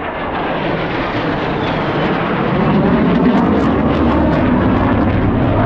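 Jet aircraft flying overhead: a loud, rushing engine noise that builds steadily over a few seconds.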